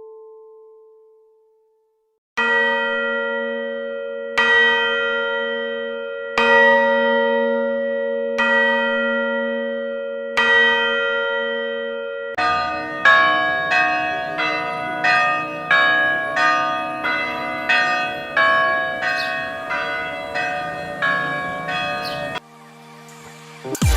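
A church bell tolls five single strokes, one every two seconds, each ringing on until the next. Then several bells of different pitches ring in quick succession, about two strokes a second, and cut off abruptly near the end.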